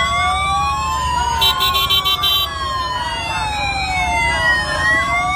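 Several police escort sirens wailing at once, their pitches slowly rising and falling and crossing each other. About a second and a half in, a quick run of about six short high beeps cuts through.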